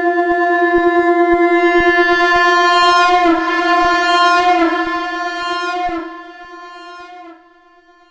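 Shankh (conch shell) blown in one long held note on F. The note is steady at first, wavers around the middle, then fades and dies away about seven seconds in.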